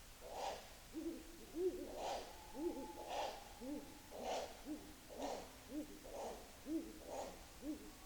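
Tawny and Ural owls calling back and forth: a fast run of short, low hoots, two or three a second, among louder, harsher calls about once a second.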